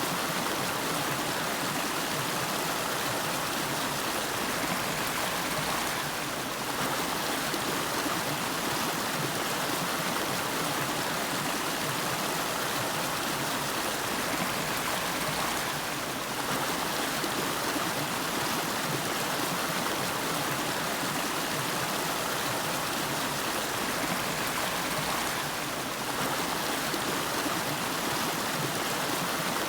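River water flowing: a steady, even rush with no other sound.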